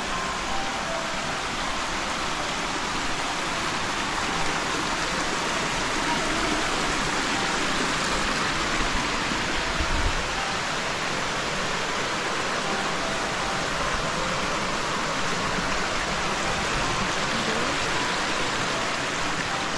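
Steady rush of a shallow stream running over small rock cascades.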